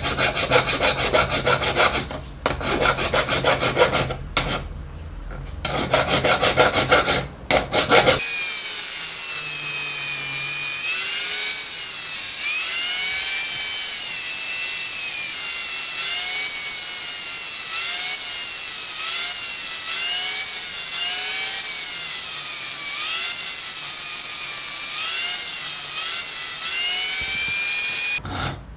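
Hand file scraping in quick back-and-forth strokes over a groove cutter's cast metal housing, with short pauses, for about eight seconds. Then a Hitachi angle grinder runs steadily, its whine dipping and rising over and over as the abrasive disc is pressed onto the housing, and it stops near the end.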